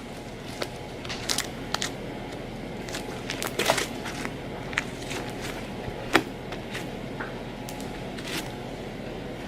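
Fluffy slime being squished and poked by hand, giving irregular small crackles and pops over a steady background hiss.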